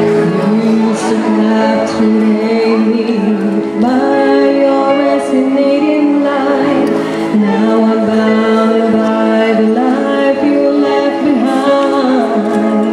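A woman singing into a microphone over a musical accompaniment of held, sustained notes.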